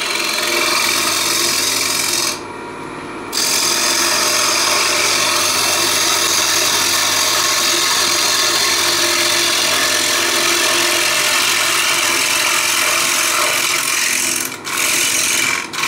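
Spindle gouge cutting a wooden bowl blank spinning on a Neureiter Twister XL lathe at 1300 rpm: a steady rushing hiss of shavings coming off, over a faint hum from the lathe. The cut stops for about a second near the start and twice briefly near the end, leaving only the hum.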